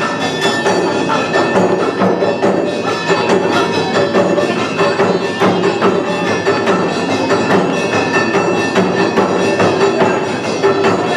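Awa odori festival music from a hayashi band: drums and clanging percussion with melody instruments, keeping a steady dance beat.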